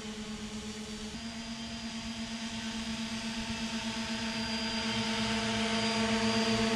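Triple-motor radio-controlled model hovercraft running across grass: a steady, pitched propeller drone that grows louder as it comes closer, with a small shift in pitch about a second in.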